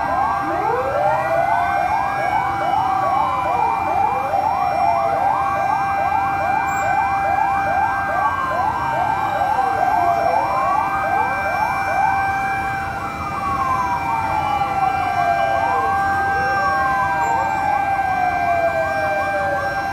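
Several fire truck sirens sounding together: slow wails rising and falling over a few seconds each, overlapping a fast yelp of about four quick rising sweeps a second, over a steady held tone.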